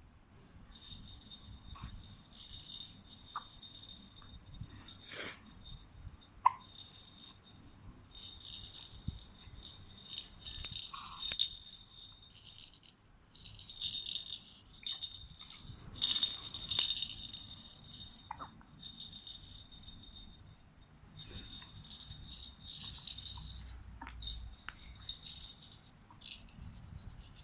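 Baby's toy rattle with bells, shaken in irregular bursts of jingling. A few short sharp sounds fall between the shakes, the loudest about six seconds in.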